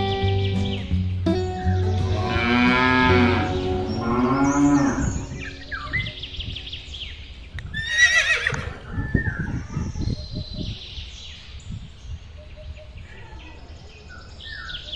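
A cow mooing in one long call from about a second and a half in. A second, higher animal call comes at about eight seconds, then small bird chirps, over the tail of background music at the start.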